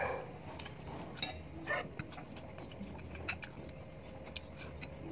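Close-up eating sounds: chewing and mouth smacks with small clicks of a metal fork against a plate. A brief louder call sounds right at the start.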